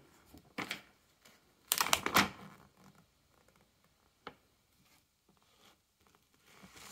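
A printed paper instruction sheet rustling and crinkling as it is handled and turned over, loudest about two seconds in, with a single sharp click a little after four seconds.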